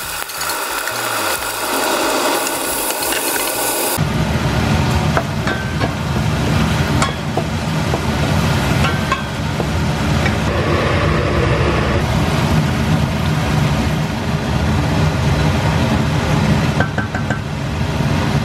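Background music over cooking sounds from a stainless steel pot on an induction hob, with a wooden spoon stirring vegetables in it. A low steady sound comes in abruptly about four seconds in and keeps on.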